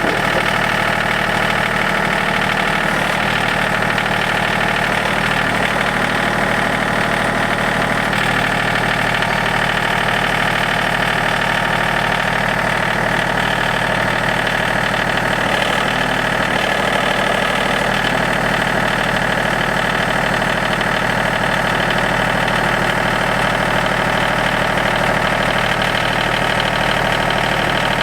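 Yanmar YT235 compact tractor's diesel engine running steadily, with no change in pitch.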